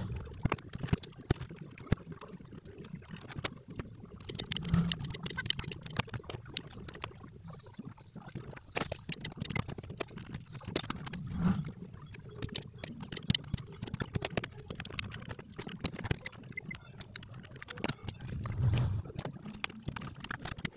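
Irregular light clicks and taps, many in quick succession, over a steady low hum.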